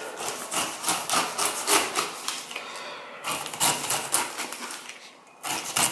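Kitchen knife slicing the tough rind off a whole pineapple onto a wooden cutting board: a quick run of rough cutting strokes, broken by two short pauses.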